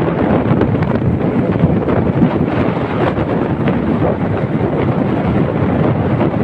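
Steady, loud rumble of a tractor-drawn hay baler running, heavily mixed with wind buffeting the microphone.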